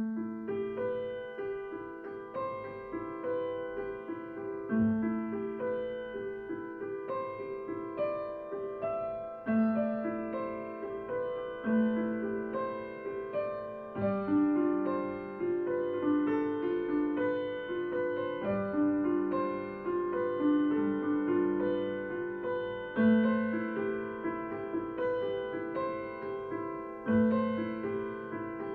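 Steinway & Sons grand piano played solo, starting right at the beginning: a steady run of quick broken-chord notes over a deeper bass note struck every few seconds.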